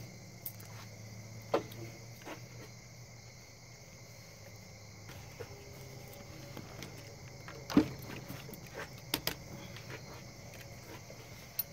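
Scattered clicks and knocks of a rifle magazine and an AR-style rifle being handled on a wooden bench. Insects buzz steadily in the background. The sharpest knocks come about a second and a half in and twice near eight to nine seconds.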